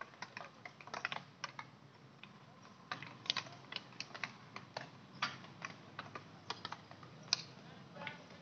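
Field hockey sticks striking balls on an artificial turf pitch: many sharp, irregular clicks, several a second, from players hitting at once.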